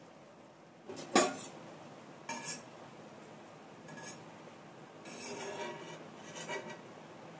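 Metal slotted spoon clinking and scraping against a steel frying pan as a test drop of batter is lifted out of the hot oil. There are a few sharp clinks, the loudest about a second in, and a rougher scraping stretch after about five seconds.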